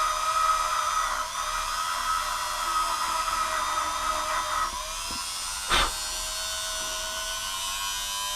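Titan 130 W electric rotary multi-tool whining at high speed while its accessory grinds rust off metal; the grinding contact eases off a little before halfway and the tool keeps running. One sharp knock near the end.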